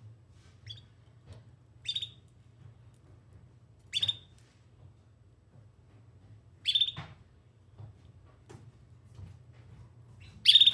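Domestic canary giving single short chirping calls, five of them a couple of seconds apart, each sliding down in pitch, the last near the end the loudest; calls for other canaries.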